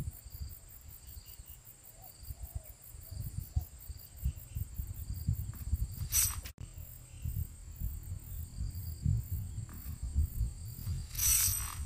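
Insects chirping steadily in an even pulsing rhythm, over low irregular rumble on the microphone. Two short bursts of noise come about six seconds in and near the end.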